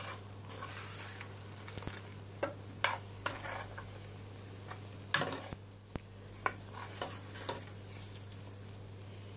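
A silicone spatula stirring and scraping ground spices around a steel pot, with irregular scrapes and taps, the loudest about five seconds in. Under it is a faint sizzle of the masala frying in a little oil and water.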